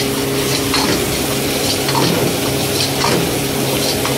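Steel ladle scraping and knocking around a metal wok about every half second while garlic, chilli and ginger sizzle in hot oil. A steady low hum runs underneath.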